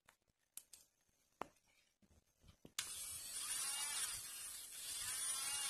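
35,000 rpm electric nail drill: a few small clicks as a bit is locked into the handpiece, then about halfway in the motor starts suddenly and keeps spinning with a high-pitched whine, its pitch wavering as the speed knob on the control box is turned.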